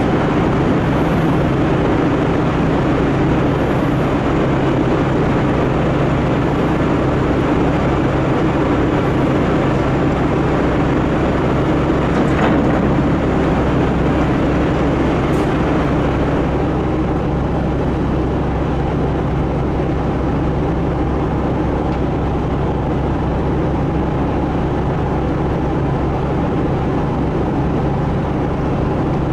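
Car ferry's diesel engines running, a loud steady drone with a low hum that does not let up.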